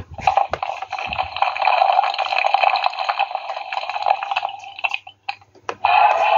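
Mattel dinosaur playset's electronic dinosaur sound effect, played through its small built-in speaker at the press of the red button. It runs for about five seconds. Then the button clicks and a second effect starts near the end.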